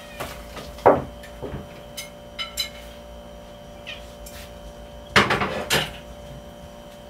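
Kitchen sounds of cooking: scattered knocks and the clatter of dishes and a cupboard, with the loudest clatter about five seconds in, over a steady hum.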